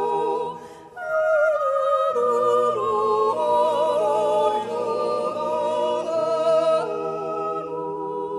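Vocal music: singing voices holding long, wavering notes with no clear accompaniment. It dips briefly about a second in and fades near the end.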